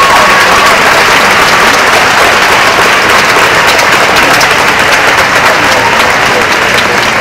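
Large crowd applauding, a loud, dense, sustained clapping that eases off slowly toward the end.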